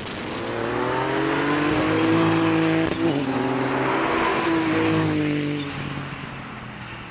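Car engine accelerating hard through the gears, the pitch rising, dropping once about three seconds in at a gear change, then rising again as the car passes and fades away. Tyres hiss on the wet road.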